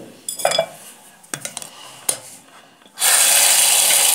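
A few light clinks and knocks, then about three seconds in a bathroom tap is turned on and water runs out of it steadily and loudly.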